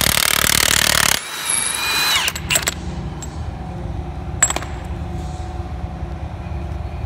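Milwaukee cordless half-inch impact wrench hammering on a stuck fastener for about a second, then spinning freely with a whine that winds down and stops a little over two seconds in, the sign that the fastener has broken loose. A couple of sharp metallic clinks follow.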